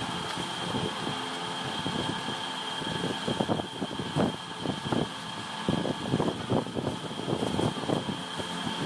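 Irregular rustling and knocking of plastic bags and biscuit packets being handled as crackers are packed into bags by hand. Under it runs a steady motor hum with a thin high whine.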